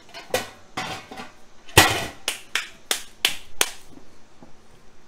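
A series of about eight sharp metal clanks and knocks with brief ringing, the loudest a little under two seconds in: the metal parts of a barrel cooker and its grill grate being handled and set in place.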